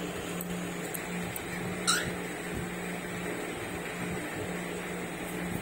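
A cockatiel gives one short, quickly rising chirp about two seconds in, over a steady low hum in the room and a few faint ticks.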